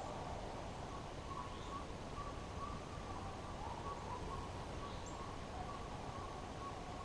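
Pack of deer hounds baying in the distance: a continuous chorus of short, wavering calls over a steady outdoor hiss, the sound of the dogs running a deer on the drive.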